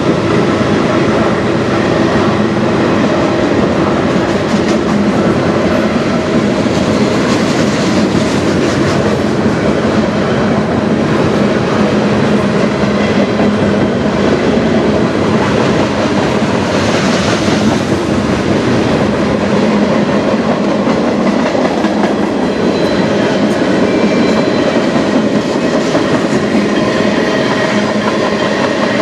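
Freight cars of a passing manifest train rolling by at steady speed: a continuous loud rumble of steel wheels on rail, thick with rapid clicking, and a faint high wheel squeal now and then in the later part.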